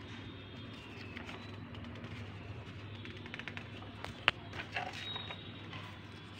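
Pages of a book being handled and turned, with faint paper rustles and small ticks over a low steady hum, and one sharp click about four seconds in.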